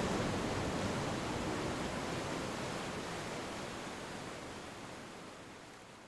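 Ocean surf washing onto a sandy beach: an even rush of small breaking waves that fades out steadily toward the end.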